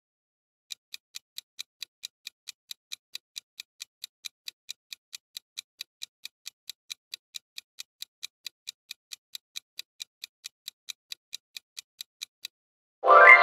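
Clock-tick sound effect of a quiz countdown timer: even, sharp ticks at about four a second for about twelve seconds. A bright, ringing chime then sounds near the end, signalling the answer reveal.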